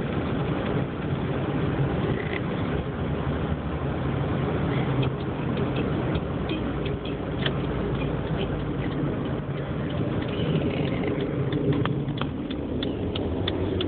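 2005 Dodge Neon's engine heard from inside the cabin, with a steady low thrumming that the driver calls horrendous, a sign of a fault he is trying to show. Scattered light clicks sound over it.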